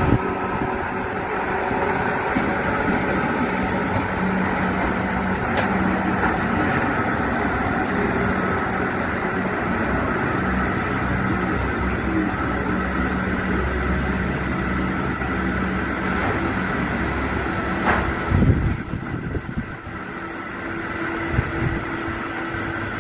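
Class 444 Desiro electric multiple unit creeping through a depot carriage wash, with a steady mechanical hum holding a couple of low tones. There is a single sharp knock about eighteen seconds in, and it goes quieter for the last few seconds as the train clears the wash.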